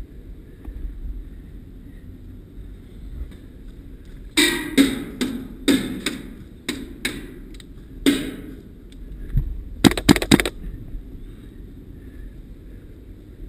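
Airsoft guns firing: about eight single shots spaced irregularly over a few seconds, then, after a short pause, a quick burst of about five shots.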